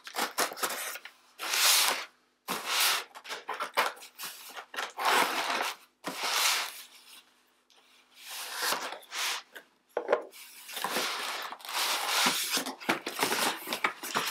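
A knife cutting the packing tape on a cardboard box, then the cardboard flaps being pulled open. It comes as a run of scratchy strokes, each under a second, with a short lull about halfway through.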